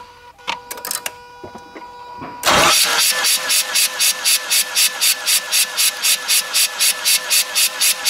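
Mazda RX-8's two-rotor Renesis rotary engine cranked over on the starter with its spark plugs out for a compression test, starting about two and a half seconds in after a few clicks. It gives an even beat of about four pulses a second, one for each rotor face coming up on compression; the even beats go with even compression on that rotor.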